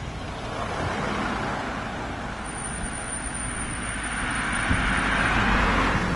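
Fire engine and fire-brigade van driving past on the road: engine and tyre noise that grows louder towards the end as the van comes close.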